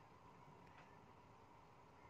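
Near silence: faint room tone with a thin steady hum.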